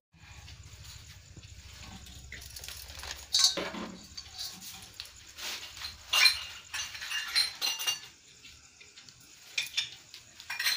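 Small metal and glass objects clinking and rattling in short scattered bursts, the sharpest about a third of the way in and again in the second half, from puja vessels and bangles being handled.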